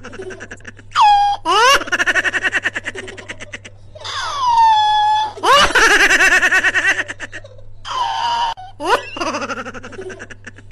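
Loud, high-pitched laughter in several bouts: long runs of rapid ha-ha-ha pulses whose pitch slides up and down, with short breaks between bouts.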